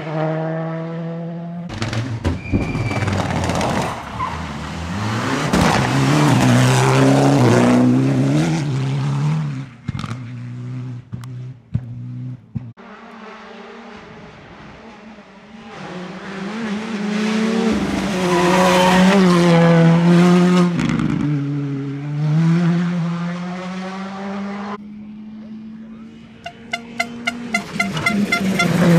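Rally cars driven flat out on a stage, engines revving hard and pitch climbing and dropping with each gear change, heard over several passes in turn. Near the end a rapid string of sharp pops and cracks comes from the exhaust as one car comes off the throttle.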